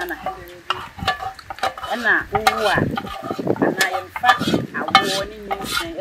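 A wooden stirring stick turning akple dough in an aluminium pot, with irregular knocks and scrapes of wood against the pot.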